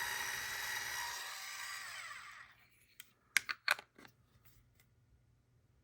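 Electric salt and pepper grinder's small motor whirring, then winding down and stopping about two and a half seconds in, followed by a few light clicks.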